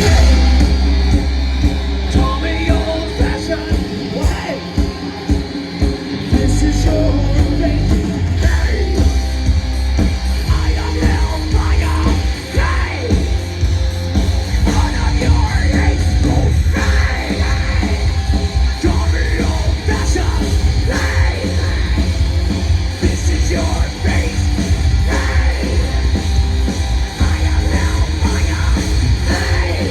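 A heavy metal band playing live, with yelled vocals over a heavy low end. The bass and drums drop back for a couple of seconds about four seconds in, then the full band comes back in.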